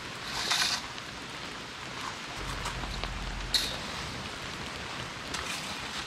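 Steady rain falling, with a brief rustle about half a second in and a single sharp click a little past halfway.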